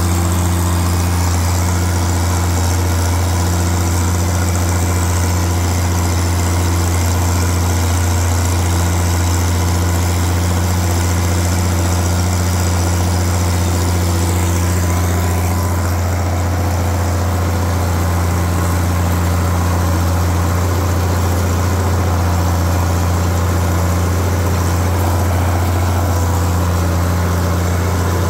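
Vintage Case tractor engine running at a steady, even pace under load as it pulls a four-bottom moldboard plow.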